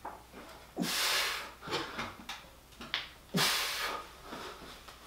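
A 2x4 cutting frame resting on sawhorses gives a few light wooden knocks as it is pushed down and rocked to test its stability. Two louder rushing bursts come about two and a half seconds apart.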